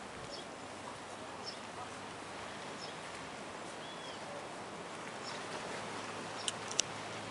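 Outdoor ambience: a steady hiss with faint high chirps repeating about once a second, and two sharp clicks near the end.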